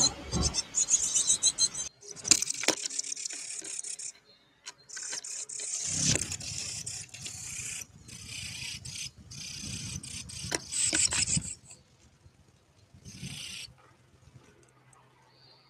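An animal's claws scrabbling and scraping on the birdhouse camera right at the microphone, in irregular rasping bursts with sharp clicks, dying down to a few faint scrapes near the end.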